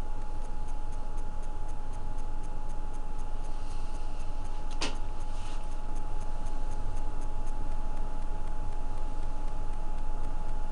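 Steady low hum with a constant high whine, under a faint, fast, regular ticking of about four a second that fades out a few seconds before the end. One sharp click about five seconds in.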